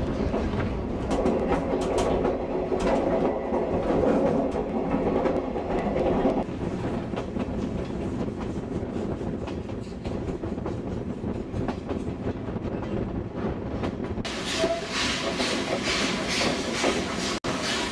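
Steam locomotive C10 8 chuffing as it hauls old-type passenger coaches, heard from inside a coach with the wheels clattering along the rails. About two-thirds of the way in the sound turns abruptly sharper and hissier.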